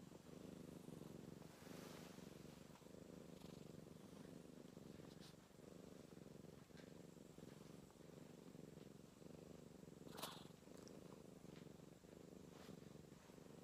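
Domestic cats purring softly, close up, a faint steady low purr.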